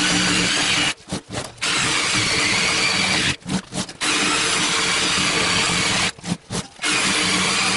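DeWalt 18 V cordless reciprocating saw cutting through the rubber sidewall of a car tyre, running steadily. It stops briefly three times, about every two and a half seconds, with a few short stutters each time before running on.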